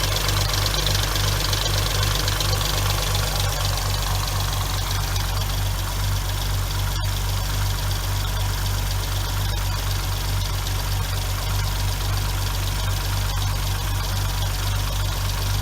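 2006 Hyundai Tiburon's 2.7-litre V6 idling steadily with a ticking from the valvetrain, which the owner puts down to clogged hydraulic lash adjusters that are not getting oiled properly. A single sharp click about seven seconds in.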